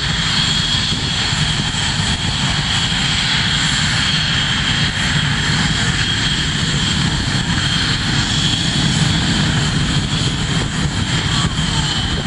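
Twin jet engines of a Blue Angels F/A-18 Hornet running on the runway: a loud, steady jet noise with a high whine held over a low rumble.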